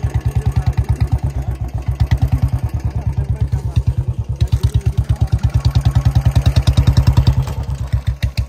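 Royal Enfield Bullet's single-cylinder engine running with an even thump of about eight beats a second. It swells as the bike pulls away a few seconds in, then eases off as it rides off.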